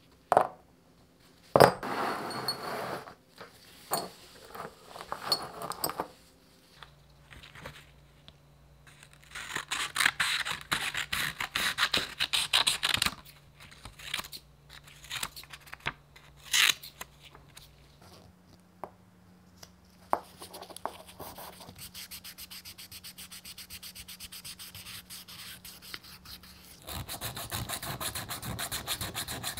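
Hand-sanding a road bike caliper brake arm with sandpaper: quick, even rubbing strokes that get louder near the end. Before that come scattered clicks and knocks as the small brake parts are handled, and a sheet of sandpaper is cut with scissors.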